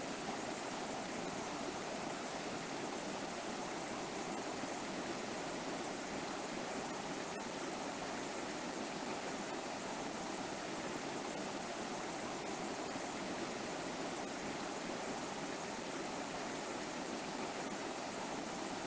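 Shallow river flowing steadily over rocks, an even rushing of water with no change in level.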